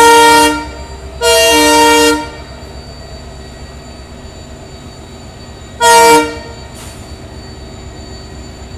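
WDP4 diesel locomotive's multi-tone air horn sounding: a long blast ends about half a second in, a second blast of about a second follows, then a short toot about six seconds in. A steady low rumble of the moving train runs underneath.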